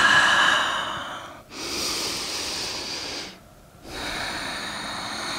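A woman's deep breaths, heard as three long rushes of air, each a second or two, with short pauses about a second and a half and three and a half seconds in; the first is the loudest.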